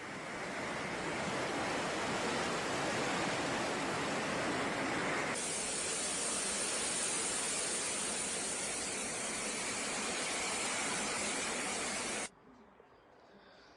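Steady rushing noise of fast-flowing floodwater. It changes in tone about five seconds in and cuts off suddenly about twelve seconds in.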